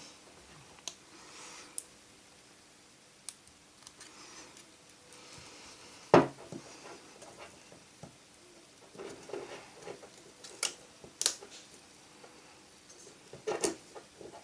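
Small sharp clicks and brief scraping as a metal blade and small tools work against the phone's frame and parts, prying at the glued screen; the loudest click comes about six seconds in, with a cluster of clicks later on.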